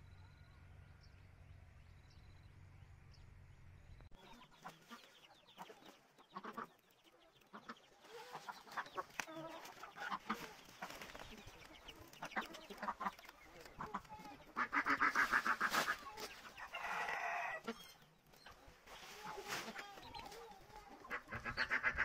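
Chickens clucking and a rooster crowing, the loudest calls in the second half, over the rustle of bundled corn stalks being handled.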